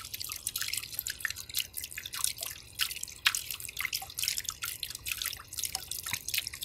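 Water from a small submersible-pump patio fountain spilling and dripping back into its water-filled tub: a steady patter of irregular drips and splashes.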